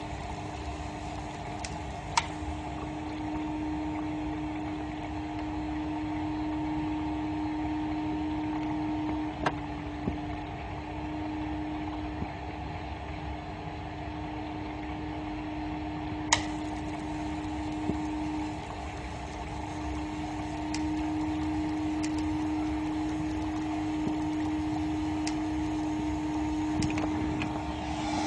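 A small electric motor on a high-voltage, water-based smoke absorber running with a steady hum. A few sharp clicks sound at irregular intervals several seconds apart.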